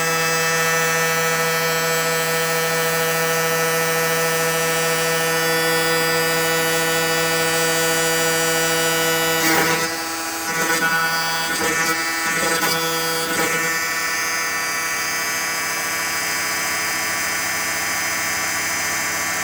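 Home-made CNC machine running with a steady whining hum. From about ten seconds in, the sound shifts several times over some four seconds, then settles again to a steady hum.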